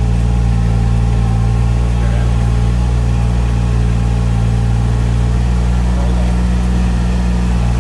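Farm utility vehicle's engine running at a steady note while it drives across a wet, rutted field.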